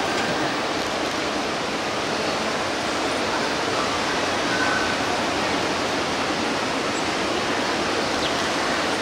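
Steady rushing water noise, an even wash with no breaks.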